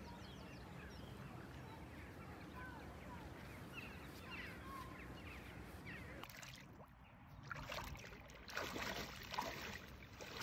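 Faint chirping of small birds for the first six seconds, then water sloshing and splashing irregularly as a person wades into open water.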